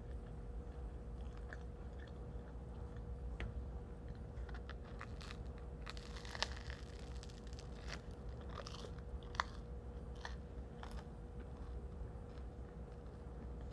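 Biting into and chewing a loaf of bread: crackly crunching of the crust, with two sharp crunches about six and a half and nine and a half seconds in.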